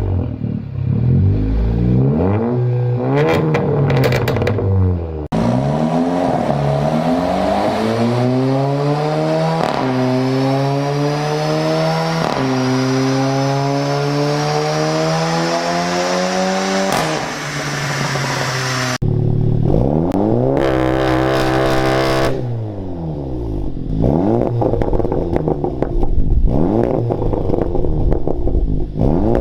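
Seat Leon Cupra ST's turbocharged 2.0-litre four-cylinder engine through its exhaust, heard in several spliced clips. It revs up and down, then accelerates hard through about four upshifts, the pitch climbing through each gear and dropping at every shift. Near the end there are more revs rising and falling.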